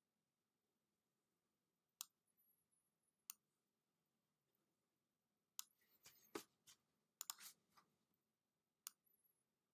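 Faint computer mouse clicks over near-silent room tone. Single clicks come about two seconds in and a second later, then a quick run of clicks between about six and eight seconds in, and one more near the end.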